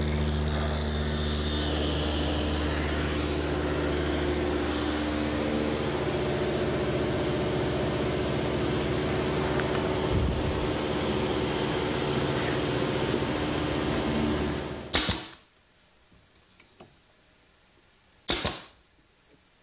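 Table saw with a dado blade running, cutting a dado in a half-inch mahogany board during the first three seconds, then running on until it stops about 15 seconds in. Near the end a pneumatic brad nailer fires twice, two sharp shots about three seconds apart.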